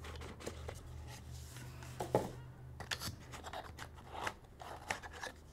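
Hands handling and opening a cardboard trading-card hobby box: scraping, rubbing and light clicks of the cardboard, with a sharper knock about two seconds in.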